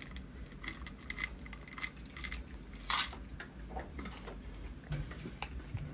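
Dry cat kibble pellets rattling out of a plastic bottle onto a desk mat, and a cat crunching them: a scatter of small clicks and crunches, with a louder burst about three seconds in.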